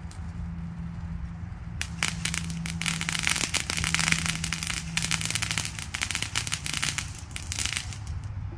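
Firecrackers going off on the ground in a fast, crackling string of sharp pops, starting about two seconds in and dying away near the end, over a steady low hum.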